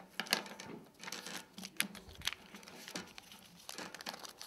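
Notebook paper and book pages rustling and crinkling, a string of short, irregular scratchy sounds.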